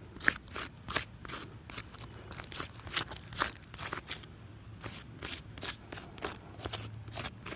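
Asphalt shingle tabs being lifted and bent back by hand, a dense run of short crunches and crackles as the tabs flex and the granules grind.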